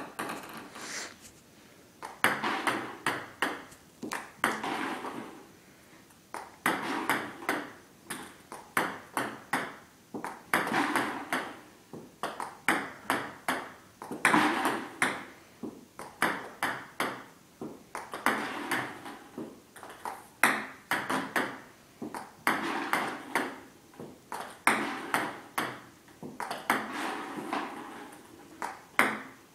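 Table tennis serves repeated about every two seconds: each one a quick run of sharp clicks as the celluloid-type ball is struck by the rubber paddle and bounces on the table.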